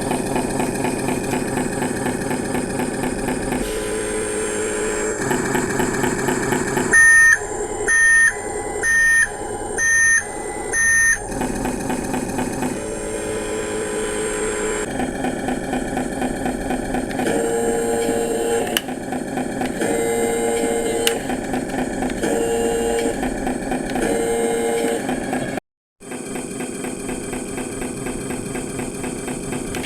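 Simulated truck engine sound from the sound module of a Huina Scania RC truck, running steadily. About seven seconds in come five loud electronic beeps about a second apart, and later a slower row of lower electronic tones.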